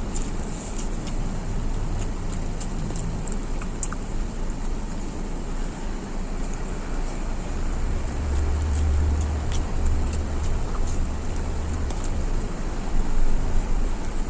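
Close-up chewing with scattered small crunchy clicks, over a steady low rumble like road traffic that swells about eight to ten seconds in.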